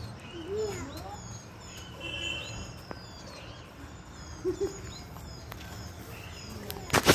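Small birds chirping outdoors, many short high calls scattered throughout, with a couple of brief voice-like sounds. Near the end a loud sudden knock and rustle as the filming phone is swung down and handled.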